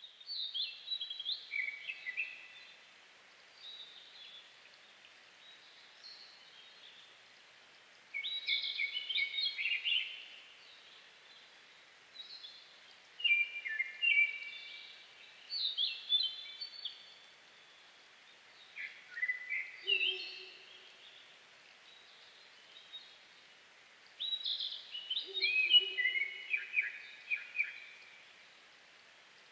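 Lesser cuckoo singing its sharp, stepped, falling phrases, about seven of them several seconds apart, while calling in flight before dawn. Twice near the end comes a short, faint, low hoot, from a Ural owl.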